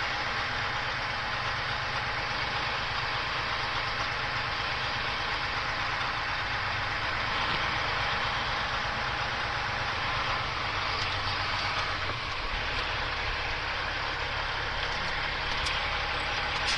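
Caterpillar 3406E inline-six diesel of a Freightliner FLD120 semi truck running steadily at low idle while the truck creeps in reverse, backing a trailer toward a loading dock. It is heard from outside the cab.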